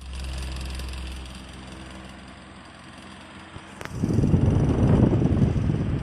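Converted pedestal fan switched on: its electric motor starts at once with a steady hum carrying a few even tones, running without vibration rattle. About four seconds in, just after a click, a much louder low rumble takes over for about three seconds.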